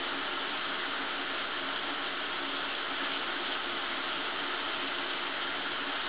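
Shower running: a steady, even hiss of water spraying down, with no change throughout.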